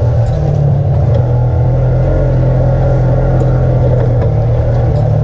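Side-by-side UTV engine running steadily under way, heard on board, with a constant low drone.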